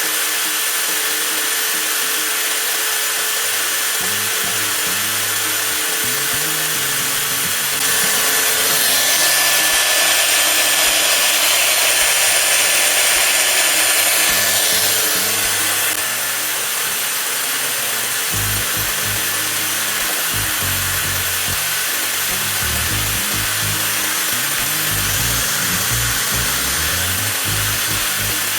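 TOTAL 20V cordless angle grinder running steadily with a high motor whine, growing louder for several seconds about a third of the way in, then settling back.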